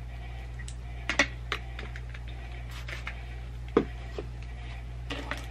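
Handling sounds while a wide-tooth plastic comb is worked through hair: a few short, sharp clicks and taps at irregular intervals, the loudest about a second in and again near four seconds, over a steady low hum.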